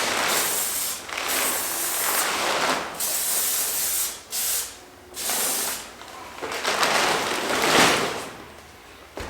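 Savlon disinfectant spray hissing out in repeated bursts of a second or two each, the last one the longest.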